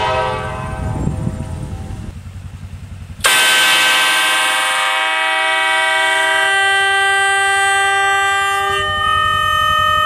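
Nathan Airchime K5LA five-chime locomotive air horn, blown on about 50 psi of air, well under its 150 psi rating. The ringing tail of a previous blast dies away in the first second or so. About three seconds in, a long blast starts suddenly: a full steady chord that thins as some of its notes drop out, about six and a half seconds in and again near the end, leaving a few steady tones.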